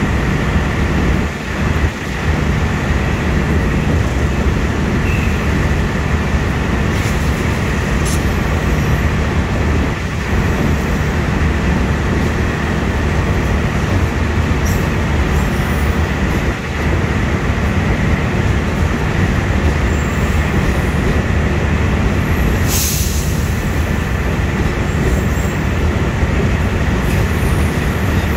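The stainless-steel coaches of a long-distance passenger train rolling past close by: a loud, steady rumble of wheels on rail with a thin, steady whine over it. There are a few short dips and clicks, and a brief sharper noise about two-thirds of the way through.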